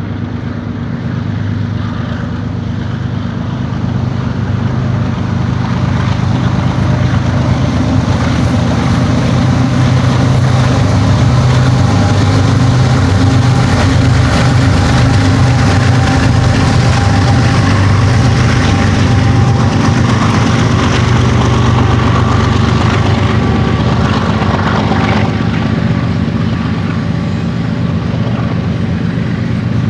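BNSF GE diesel-electric locomotives (an ET44C4 leading two ES44C4s) approaching and passing under power: a steady low engine drone that grows louder over the first ten seconds. After about 25 seconds the engine sound eases and the rumble of double-stacked container cars rolling by carries on.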